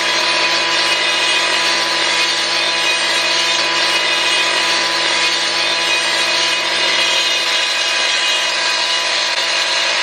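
Gas-powered concrete cut-off saw running at full throttle with its blade grinding into concrete, a steady unbroken whine.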